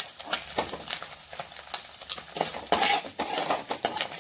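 Slotted steel spoon scraping and clinking against an aluminium kadai while scooping fried scrambled egg out of the oil, with a louder run of scraping about two and a half seconds in.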